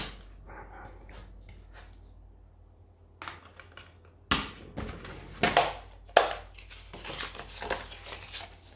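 Blu-ray cases and packaging being handled: a sharp click at the start, then knocks and crinkling rustle from about three seconds in.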